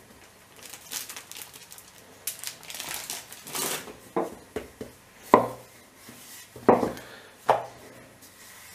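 Hands patting and pressing a ball of dough flat on a floured marble counter, with plastic-bag rustling in the first half, then several sharp knocks on the stone, the loudest about five seconds in.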